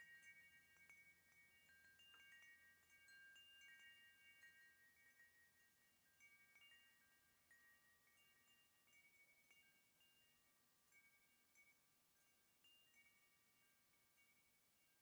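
Wind chime ringing faintly: several clear high tones struck now and then and left to ring on, the strikes thinning out and growing fainter toward the end.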